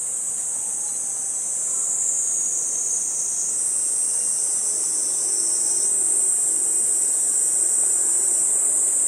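Chorus of cicadas singing, a steady, loud, high-pitched drone, its pitch shifting slightly about three and a half seconds in.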